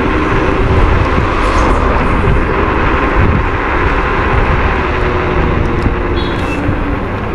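Wind rushing over the microphone and road noise while riding a Varla Eagle One electric scooter at speed on its two motors. A brief high chirp comes about six seconds in.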